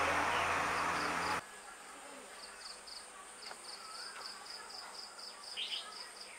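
A loud, steady rushing noise with a low hum cuts off suddenly about a second and a half in. Quieter outdoor background follows, with an insect chirping in a steady pulse of about four short chirps a second.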